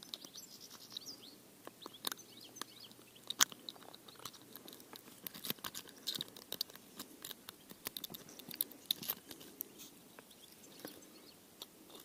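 Small irregular clicks and crackles of hands unhooking a metal spinner lure from a small pike's mouth.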